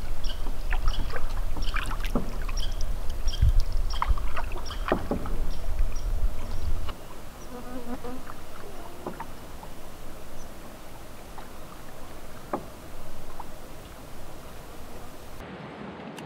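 Canoe paddling on calm water: paddle strokes and light knocks against the canoe hull. A low rumble underlies the first seven seconds or so and then stops, and short high chirps come in the first few seconds.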